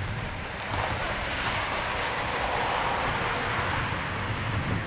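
Wind buffeting the microphone: a steady rush with a low rumble, swelling about a second in.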